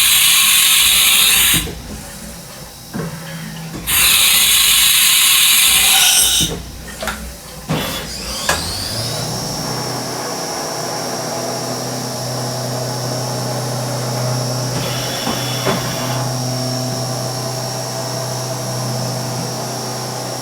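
Haas VF-1D CNC mill demonstrated: two loud hissing blasts of about two seconds each and a few clicks, then the spindle spins up with a rising whine that levels off into a steady high-pitched whine over a low hum as it runs at speed.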